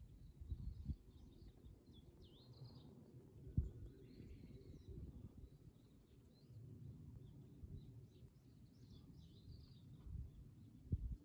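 Wind rumbling on the microphone, with a couple of sharper gusts, while small birds chirp in short repeated notes in the background.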